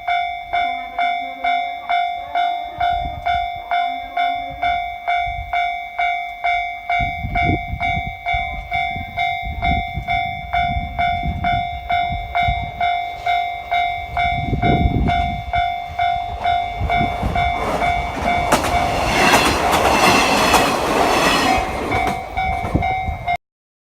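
Japanese level-crossing alarm ringing steadily, an electronic bell tone at about one and a half strikes a second. Under it a KiHa 48 diesel railcar train approaches with a rumble that swells, then passes loudest over the last few seconds with wheel and engine noise. The recording cuts off abruptly near the end.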